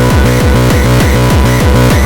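Frenchcore electronic music at 200 BPM: a distorted kick drum hits on every beat, about three times a second, each hit dropping in pitch, with sustained synth tones above.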